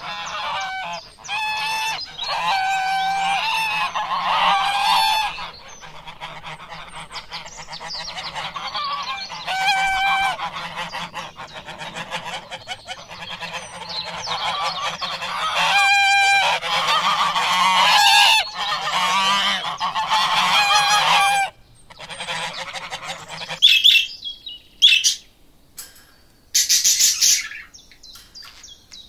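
Ducks quacking over and over, in runs of loud, nasal, honk-like calls. About 24 seconds in the sound cuts to parrots and cockatoos giving short, harsh, high-pitched screeches.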